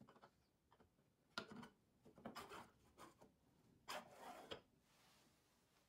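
Faint handling of plywood parts: a knock, then wood scraping and sliding as a wooden carriage block is fitted over a homemade drill press stand's two steel guide rods, ending in a sharp click.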